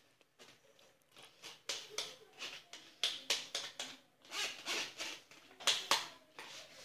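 Plastic sieve being shaken and scraped to empty boiled flaxseeds onto a cloth: an irregular run of short scraping and rustling strokes.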